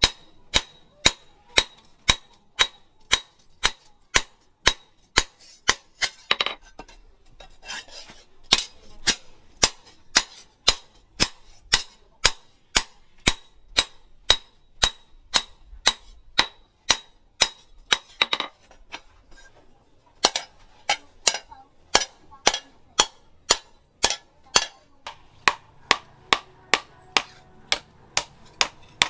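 Hand hammer striking a rebar-steel knife blade on a small post anvil, steady forging blows at about two a second. The blows pause briefly twice.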